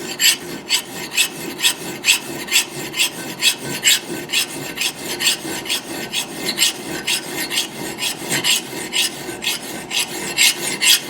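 A hand file rasping across the steel edge of an axe head in steady, even strokes, about two to three a second. The file is biting well into the steel.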